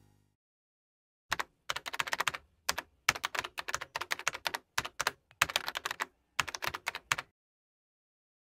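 Typing sound effect: quick runs of key clicks in short bursts, starting about a second in and stopping about a second before the end.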